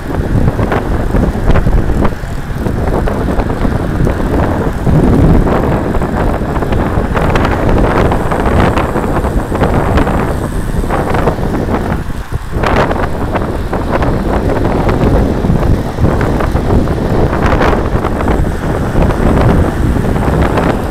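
Wind buffeting the microphone of a camera on a moving bicycle: a loud, continuous rushing rumble with irregular gusty surges.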